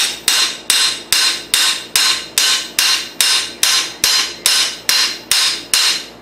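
Steel hammer striking a motorcycle crankshaft flywheel in a steady series of taps, about two and a half a second, each blow ringing briefly off the steel. The blows are knocking the pressed-together flywheels back into line to true a crankshaft that is way off.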